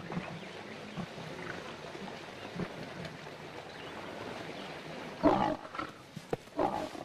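Lioness growling: two loud rough growls about five seconds in and again near the end, with a few fainter ones before, over a steady noisy background.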